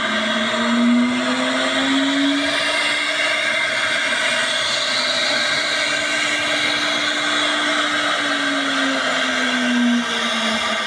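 CNC router spindle, set to 18,000 rpm, whining up in pitch as it spins up to speed over the first couple of seconds. It then runs at a steady pitch with a hissy cutting noise while the router mills a rectangle in a melamine-faced chipboard panel. Near the end the pitch falls as the spindle is switched off and spins down.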